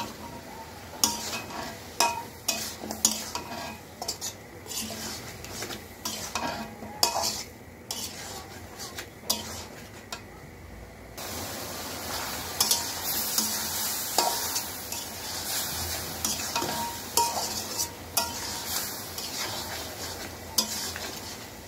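Metal spatula repeatedly scraping and knocking against a metal karai as cauliflower and potato are stir-fried (bhuna) in spice paste, over a sizzle of frying oil. The sizzle grows louder about halfway through.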